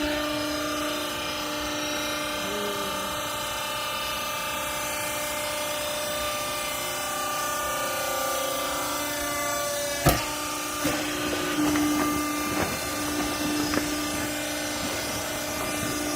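Hydraulic baler's motor and pump running with a steady hum. A single sharp bang comes about ten seconds in, followed by several lighter knocks.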